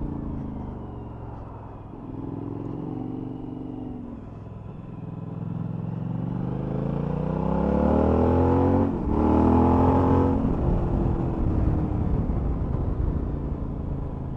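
Suzuki V-Strom 1000's V-twin engine under way: easing off at first, then pulling up steadily through the revs from about four seconds in. A brief dip about nine seconds in is a gear change, after which it pulls again and then eases off.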